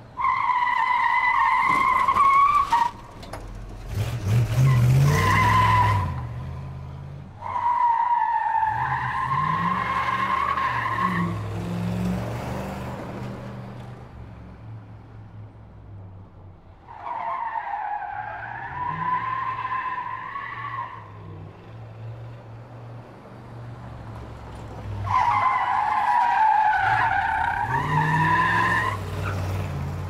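Small electric drive motor of a 1:24-scale remote-control Hummer H2 toy, whining in bursts of a few seconds as it drives and turns on carpet, its pitch wavering with speed. A clatter of knocks about four seconds in.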